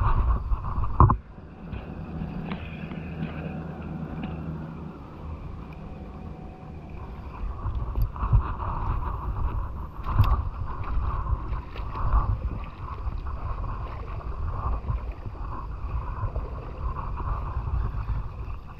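Wind buffeting the microphone while a spinning reel is cranked to retrieve a lure, with one sharp knock about a second in.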